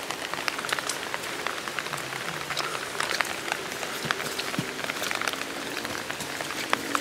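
Light rain pattering on foliage and the ground, a dense run of irregular drop ticks.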